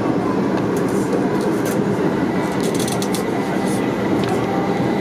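A Haga-Utsunomiya Lightline light-rail tram heard from inside the car while running: a steady rumble of wheels on rail with a faint steady high tone. A few light clicks come about two to three seconds in.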